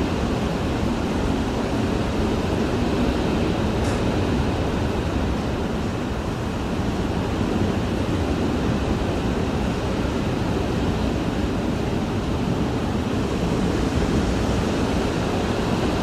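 Hurricane wind heard from inside a house: a steady, low rush, dulled by the walls and windows.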